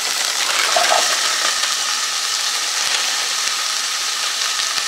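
Chopped white onion sizzling steadily in butter in a pot as fresh green beans are tipped in on top.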